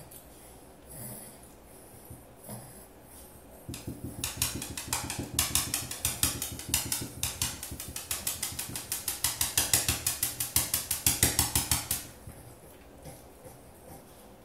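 A chihuahua breathing hard and noisily in a fast, even rhythm of about five breaths a second. It starts about four seconds in, grows louder, and stops abruptly about eight seconds later.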